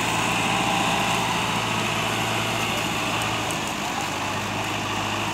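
Diesel farm tractor engines running steadily. The engine note changes about three and a half seconds in.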